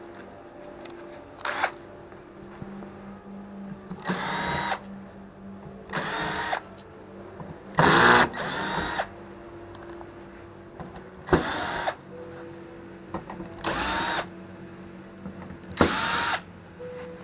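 Electric drill/driver run in about eight short bursts of a second or less, each one spinning up into a steady whine before stopping.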